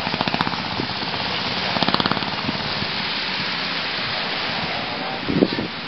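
Steady wind buffeting the camera microphone, with sea surf hissing behind it. There are brief louder sounds about two seconds in and again near the end.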